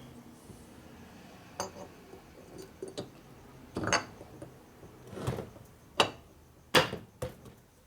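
Metal parts clinking and knocking by hand as the cam cover is fitted onto the shovelhead engine: about eight sharp, irregular clinks, the loudest two near the end.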